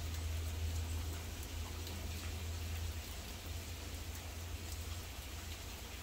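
Rain falling steadily, with many individual drops tapping close by, over a low steady rumble.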